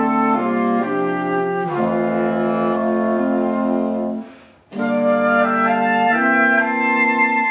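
Woodwind quintet (flute, oboe, clarinet, horn and bassoon) playing held chords that change every second or so. About two-thirds of the way through the sound fades and stops briefly, then the ensemble comes back in together.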